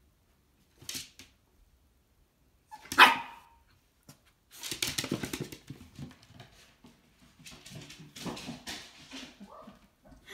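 Lhasa Apso puppy giving one sharp bark about three seconds in, after a short softer sound about a second in; then a long run of rapid clicking and scuffling with a few smaller yips.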